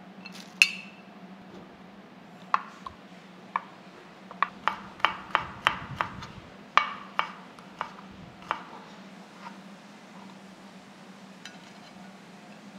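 Kitchen knife chopping garlic on a wooden cutting board: sharp, irregular knocks, coming quickest in the middle and thinning out near the end. A steady low hum runs underneath.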